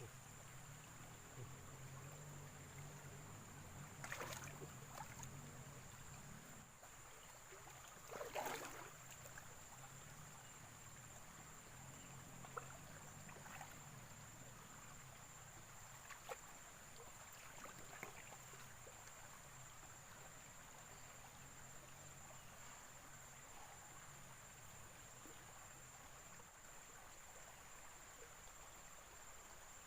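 Faint outdoor ambience: a steady high insect drone, with two brief splashing or rustling noises about four and eight seconds in and a few faint clicks.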